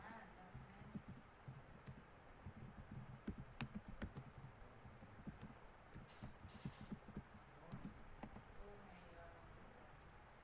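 Faint computer keyboard typing: quick, irregular key clicks that thin out near the end.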